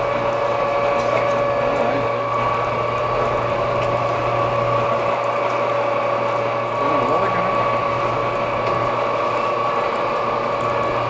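Lifeboat davit winch running, hoisting a lifeboat: a steady mechanical drone with two held tones.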